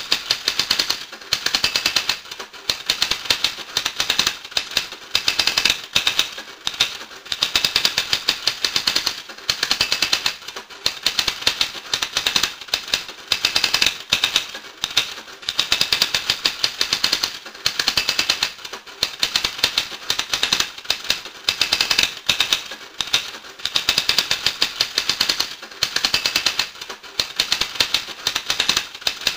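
Rapid, dense clicking in runs of about one to two seconds, broken by short pauses, with the clicks sharpest in the upper range.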